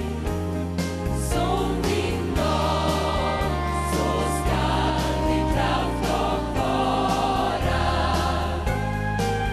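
Gospel choir singing in harmony over live band accompaniment, with a bass line stepping between held notes and a steady beat.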